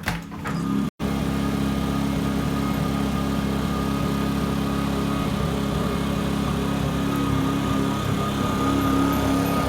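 Generator engine running steadily: an even hum with a thin high whine above it. It cuts out for an instant about a second in.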